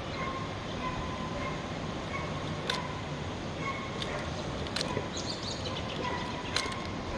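Ferrocerium fire-starter rod struck three times, each a short sharp scrape, over a steady background hiss.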